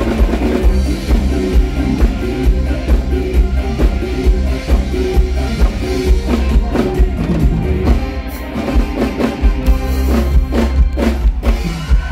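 Live band music with a steady, strong drum beat and sustained pitched instruments above it.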